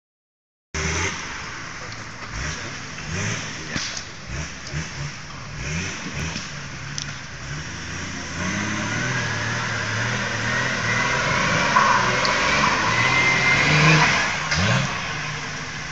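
Off-road 4x4's engine revving in short bursts, then held at high revs under load as the vehicle climbs a steep dirt slope, the pitch rising; it eases off near the end.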